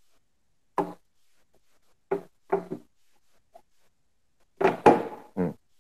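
A few short knocks from the keyboard tray of a sit-to-stand desk converter being handled and tilted, with a louder clunk about five seconds in.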